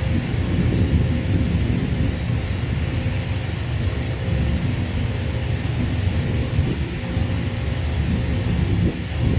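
Steady low rumble of a twin-engine jet airliner's engines at taxi power as it rolls toward the listener, with a faint steady whine above the rumble.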